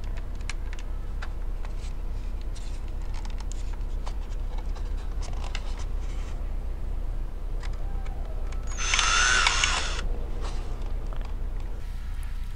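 Light clicks and creaks from handling the cracked plastic body shell of a 3DR Solo drone, then a short burst of about a second from a cordless drill, its whine rising and falling, about nine seconds in, as material is cut away between the top and bottom halves of the shell.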